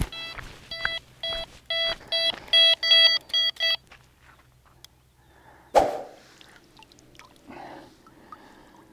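Electronic carp bite alarm beeping in quick succession, faster and faster until almost continuous, as a fish takes line on a run; it stops about four seconds in. A single sharp knock follows about six seconds in.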